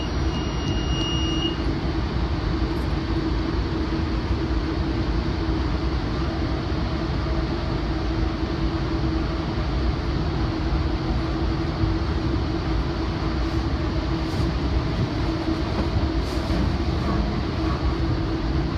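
Steady rumble of a moving commuter train heard from inside the Rotem cab car, with the hum of the BNSF GE AC4400CW diesel-electric locomotive coupled just ahead. A thin high steady tone stops about a second and a half in.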